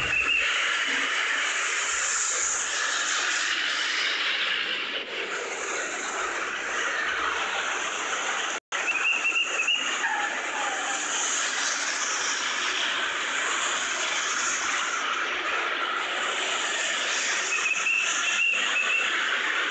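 Steady rush of traffic and tyre noise as a convoy of SUVs and police vehicles drives past, with a brief high warbling tone three times. The sound drops out for an instant near the middle.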